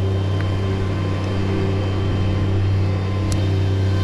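An engine idling steadily with an even low hum, and a faint click about three seconds in.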